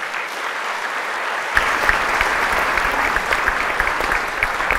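Audience applauding after a talk, the clapping swelling during the first second or so and then holding steady.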